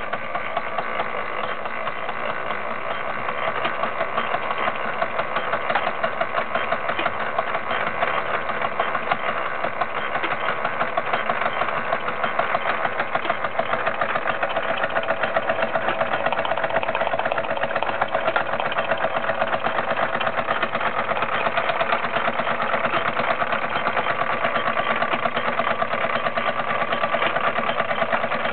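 Bowman M101 / Hobbies Lion toy live-steam stationary engine running steadily in steam, a rapid, even beat of chuffing and mechanical clatter that keeps up without a break.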